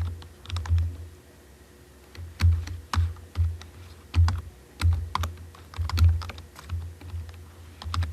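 Typing on a computer keyboard: irregular keystrokes, each with a dull thud, pausing for about a second and a half shortly after the start.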